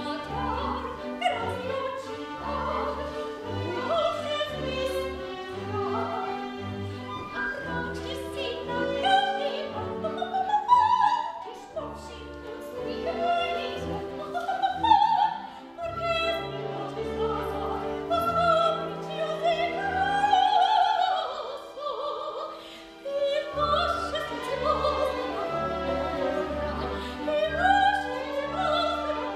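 Soprano singing an operetta aria with wide vibrato over orchestral accompaniment, the orchestra marking a steady beat in the bass. About two-thirds of the way through, the bass drops out under a held, wavering high note, then the beat comes back.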